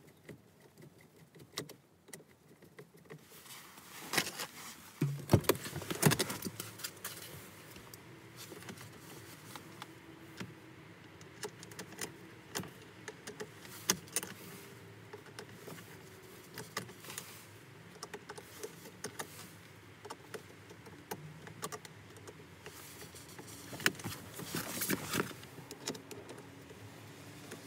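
Scattered clicks and rattles of small parts and a hand tool being handled at a Volkswagen Mk7's steering column while a replacement clock spring is fitted, with louder clusters of clicks about five seconds in and again near the end.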